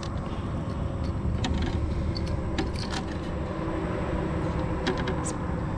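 Scattered small clicks and knocks as a hooked bass is unhooked with pliers over a plastic kayak deck, against a steady low rumble.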